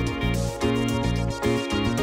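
Instrumental opening theme music with a steady beat and a bass line that changes note about every half second.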